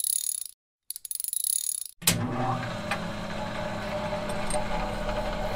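Intro sound effects: two short bursts of rapid clicking about a second apart, timed to a countdown. About two seconds in comes a sharp hit, then a steady low mechanical hum.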